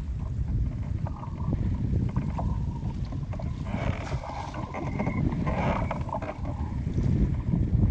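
Wind buffeting the microphone as a low, steady rumble, with choppy sea slapping and splashing against a small open boat's hull. There are two louder splashy stretches, about four and six seconds in.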